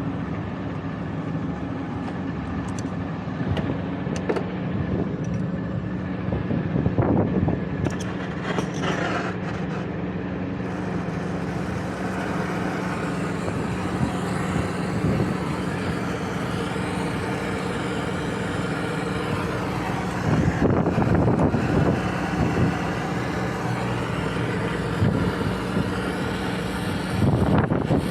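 Oxy-acetylene brazing torch burning with a steady hiss, which fills in from about ten seconds in, over a constant low mechanical hum.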